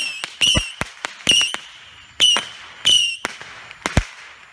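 Saturn missile firework battery firing shot after shot, each a sharp launch pop followed by a short, high whistle. A heavier final pop comes about four seconds in, and then the volley stops.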